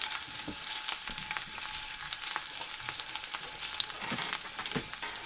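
Chicken combs frying in a pan of hot oil: a steady sizzle with scattered small pops and crackles.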